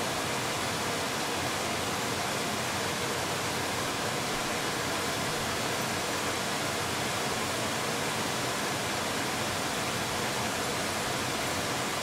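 A steady, even hiss across the whole range with no changes, clicks or tones, loud enough to cover everything else.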